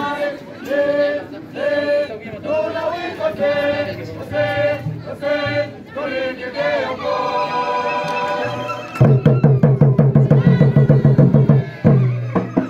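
Voices singing a short phrase over and over, then about nine seconds in large wooden hand drums come in with a fast, steady beat, dropping out briefly near the end before carrying on.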